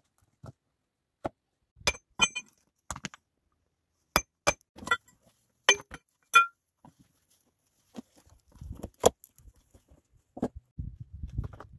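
Stones knocking and clinking against each other: about a dozen sharp, irregular hits as rocks are handled and set in a dry-stone wall. Near the end, a low scuffling on stony soil.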